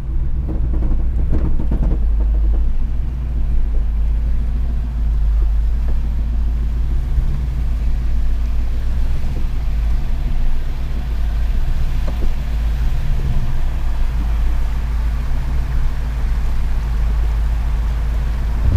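Jeep Grand Cherokee WJ engine running with a low, steady rumble.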